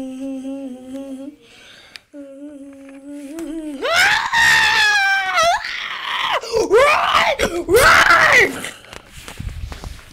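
A person's voice hums a low steady note, breaking off briefly, then lets out a long high scream about four seconds in that drops in pitch at its end, followed by two shorter screams that rise and fall.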